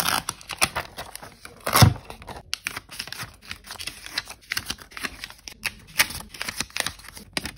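Paper sticky notes being peeled off a surface and crumpled in the hand: an irregular run of crinkling and tearing crackles, with one louder, fuller rustle just under two seconds in.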